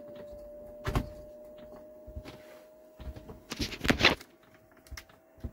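Chinese diesel heater starting up: its fan motor runs slowly with a steady whine whose pitch creeps up slightly, while its fuel pump clicks under the floor. Louder clicks and knocks of handling sound over it, the loudest a cluster about four seconds in.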